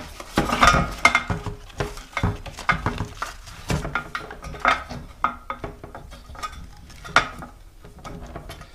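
Irregular clicks, knocks and rattles of a mobility scooter's control box and its wiring plugs being handled and slid into place in the scooter's frame, with a louder knock about a second in and another about seven seconds in.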